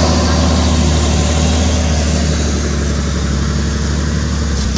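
Heavy truck's diesel engine idling with a steady low drone.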